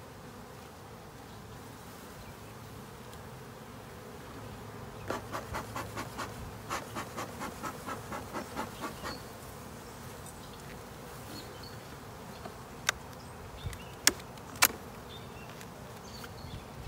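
Honey bees buzzing steadily over an open hive. About five seconds in, a run of quick, even puffs from the bee smoker lasts some four seconds. Later come three sharp knocks of wooden hive parts as the rim is worked loose and lifted.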